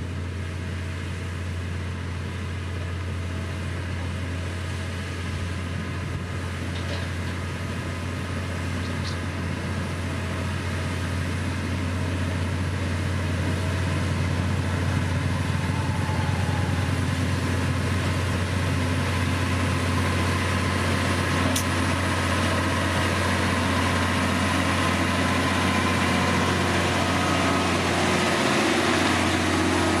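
Diesel engine of a heavy road-construction machine running steadily, with a constant low hum; it grows louder about a third of the way through and then holds.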